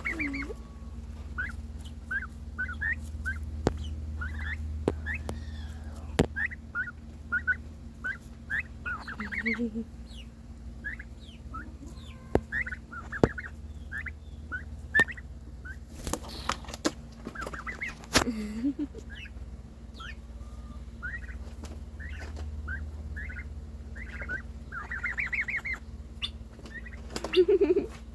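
Pet turkeys calling: a steady run of short, high peeping yelps, one or two a second, broken a few times by a lower, coarser call. A few sharp clicks and a steady low hum lie underneath.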